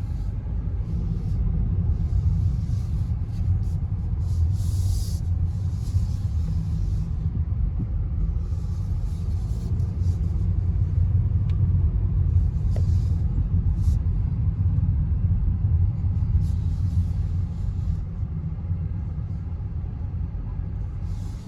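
Car driving, heard from inside the cabin: a steady low road rumble, with short spells of higher hiss every few seconds.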